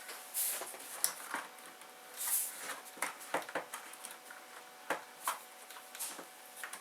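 Hard plastic dashboard trim on a Honda Civic clicking and knocking as the instrument-cluster cover is worked free of its clips: scattered taps and clicks, with a couple of brief scraping rustles.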